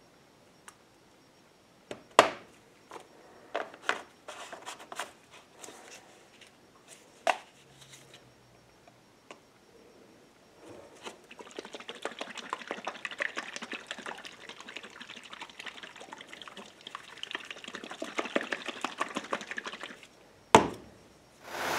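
Plastic paint-gun cup of mixed epoxy primer being handled: sharp clicks and snaps as the lid goes on, then a long stretch of fast rattling and sloshing as the capped cup is shaken, and one loud knock near the end as it is set down on the bench.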